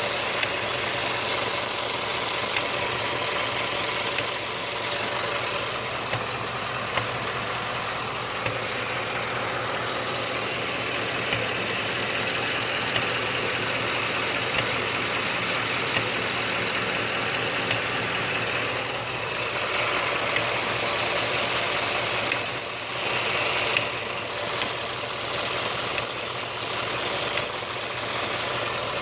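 Ford F-150's 5.0-litre V8 idling steadily, with short sharp knocks every second or two: the intermittent knock the owner is trying to find.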